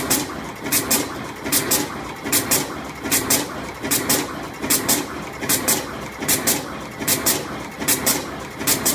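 Automatic single-head twist-wire terminal crimping machine cycling steadily, a close pair of sharp clacks about every 0.8 seconds over a steady machine hum.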